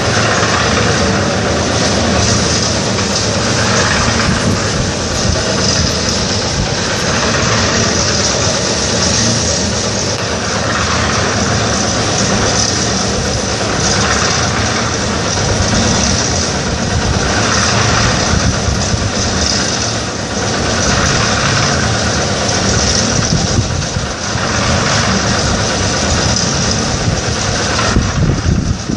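Engine-driven drum concrete mixer running steadily, with a louder swell in the sound about every three to four seconds.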